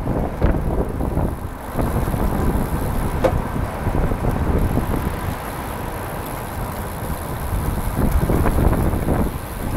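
Wind buffeting the microphone of a camera riding on a fast-moving recumbent trike: a steady, fluctuating low rumble.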